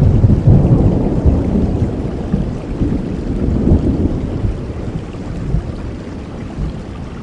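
Rain falling steadily under a low roll of thunder, loudest at the start and dying away over several seconds.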